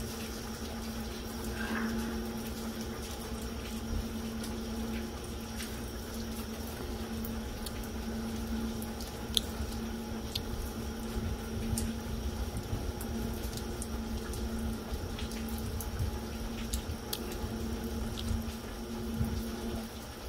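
Steady light rain falling on wet pavement and puddles, with scattered sharper drip clicks. A steady low hum runs underneath.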